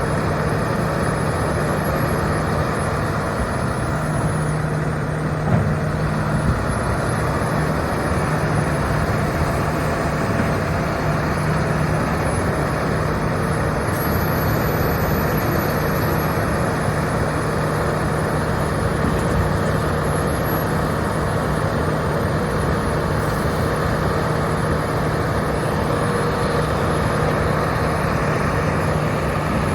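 John Deere 345G LC excavator's Isuzu 6HK1 six-cylinder turbo-diesel running steadily at an even, unchanging speed.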